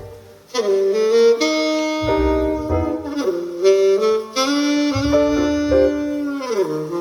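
Jazz trio recording playing through a Mercedes C-Class W205's Burmester surround sound system: a saxophone melody over low bass notes. It starts after a short pause between phrases.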